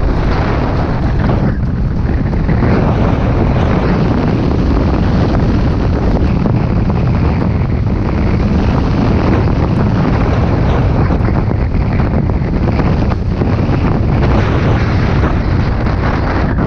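Wind rushing over the microphone of a snowboarder riding downhill, loud and steady, mixed with the hiss and scrape of a Lib Tech snowboard running over crusty, ungroomed snow.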